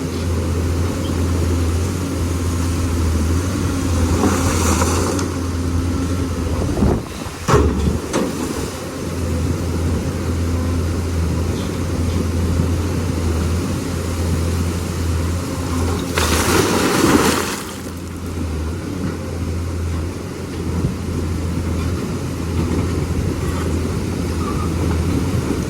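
Lonking excavator's diesel engine running with a steady low hum. Louder rushing noises come over it twice, about 4 and 16 seconds in, and there is a short loud disturbance about 7 seconds in.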